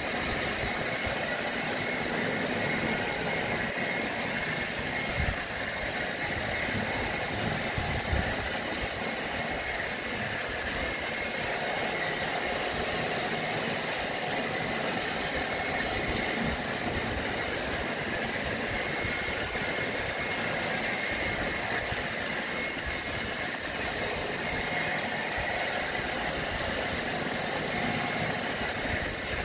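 Hand-held hair dryer running steadily: the even whir of its motor and fan with rushing air.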